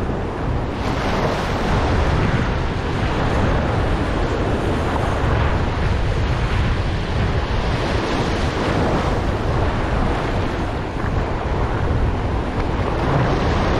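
Ocean surf washing and breaking close by, with wind rumbling on the microphone.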